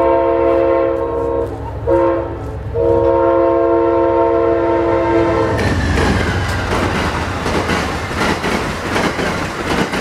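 Amtrak passenger train's locomotive air horn blowing at a grade crossing: a long blast, a short one and another long one, several chime tones sounding together. About five and a half seconds in the horn stops as the locomotive passes, and the passenger cars go by with a steady rumble and clickety-clack of wheels on rail.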